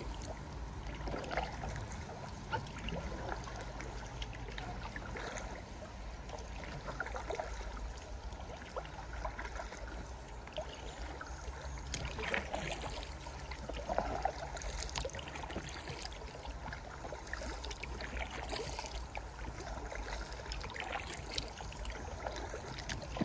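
Paddle strokes, drips and small splashes of water as a packraft is paddled along a calm river, coming irregularly every second or two over a steady low rumble.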